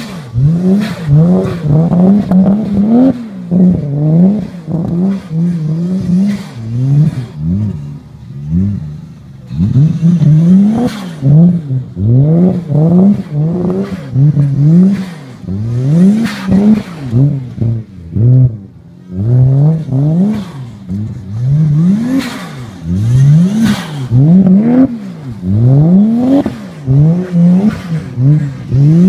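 Toyota JZX81's 1JZ straight-six engine revving hard over and over while the car drifts in circles, each rev climbing and then dropping back about once a second. The revs ease off briefly twice.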